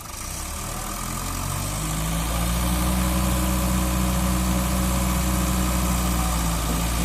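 Mitsubishi BD2e bulldozer's diesel engine being throttled up over the first two seconds or so, then running steadily at the higher speed.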